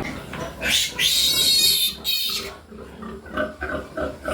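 A piglet squeals shrilly for about two seconds while being handled. Near the end come quick, short pig grunts, about four a second.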